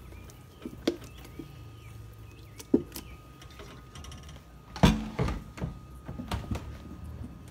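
Wooden spoon stirring thick bean batter in a stainless steel mixing bowl, with irregular knocks and scrapes of the spoon against the bowl, the loudest about five seconds in.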